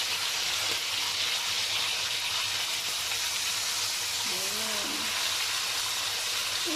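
Marinated pork steaks sizzling steadily in hot oil in a pan during their second frying, turned over with metal tongs.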